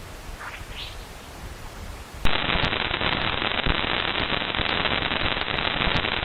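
Sonified Parker Solar Probe space-plasma data: a faint hiss with two short rising chirps, then about two seconds in an abrupt switch to loud crackling static with scattered pops.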